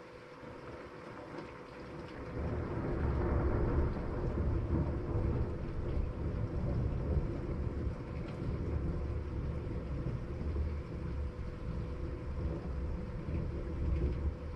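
Long rolling rumble of thunder that swells about two seconds in and keeps rumbling low through the rest, over a steady hiss of rain.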